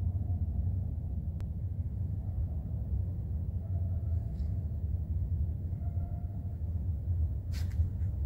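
Steady low rumble of ambient noise in a large, empty warehouse, with a brief hiss near the end.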